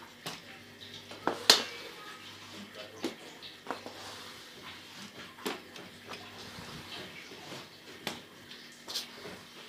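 Irregular knocks and clatter of household things being handled and moved while a room is cleaned, with one sharper knock about a second and a half in, over a faint steady hum.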